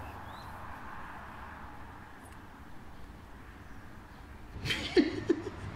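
Steady faint outdoor background noise, with a brief vocal sound about five seconds in.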